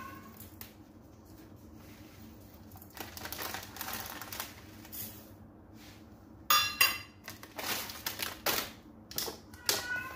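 A plastic bag of rolled oats crinkling and rustling as the oats are poured into a small saucepan, followed by a run of sharp clicks and clatters of a metal measuring cup and pan on the counter, starting a little past halfway.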